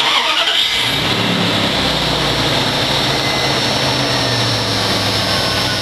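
1996 Dodge truck's 5.2 litre V8 starting up and then running steadily, with new spark plugs and the shorting coil wire replaced to cure a misfire.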